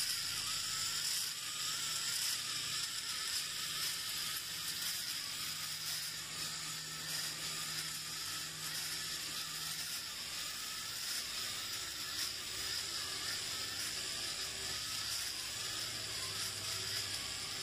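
Small electric gear motor of a battery-powered toy walking robot whirring steadily, with a faint wavering whine as its legs cycle.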